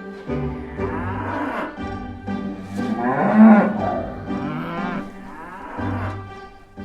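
Cattle mooing: several long, drawn-out moos, the loudest about three seconds in, over soft background music.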